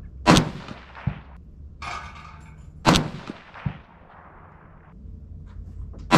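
Rifle shots from a Ruger Precision Rifle in 6.5 Creedmoor: three sharp reports about three seconds apart, the last near the end. A fainter crack follows each one under a second later.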